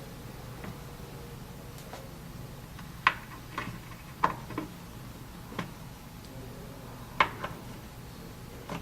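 Shelf pegs being pushed into the pre-drilled holes of a wood cabinet's sides: about eight small, sharp clicks and taps, unevenly spaced, the loudest about three seconds in and about seven seconds in.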